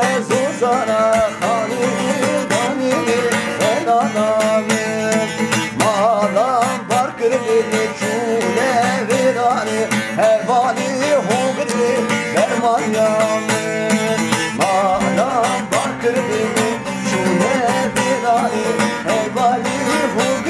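Bağlama (long-necked Turkish saz) played continuously, with a man singing a folk melody over it.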